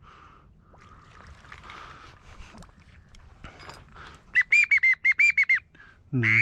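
Whistled duck calling: a quick run of about eight short, loud whistled notes, each dipping in pitch, about four and a half seconds in. A single loud low call follows near the end.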